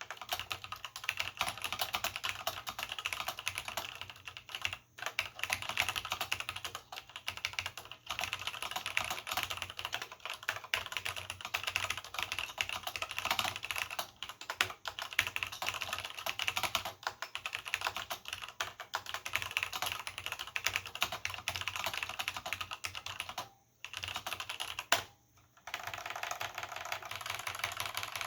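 Fast continuous typing on a vintage Cherry G80-0693/c mechanical keyboard with linear Cherry MX Black switches and doubleshot keycaps: a dense run of key clacks and bottoming-out clicks, with a few brief pauses, two of them close together near the end.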